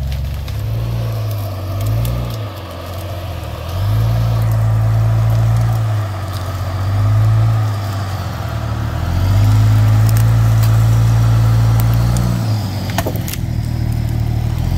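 Off-road vehicle's engine pulling under load, its pitch and loudness rising and falling in several surges of throttle, loudest about four seconds in and again from nine to twelve seconds. Occasional sharp clicks and knocks sound over it.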